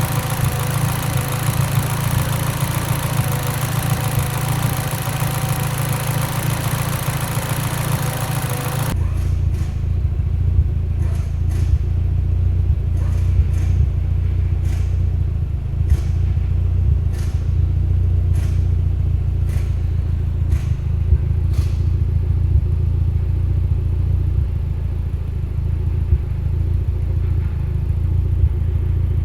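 Mitsubishi Lancer Evolution X's 2.0-litre turbocharged four-cylinder idling with a low rumble; the owner takes the rough idle for a lean misfire. A hiss with a steady whine runs over it and cuts off suddenly about nine seconds in. A run of sharp, irregular clicks follows over the next twelve seconds or so.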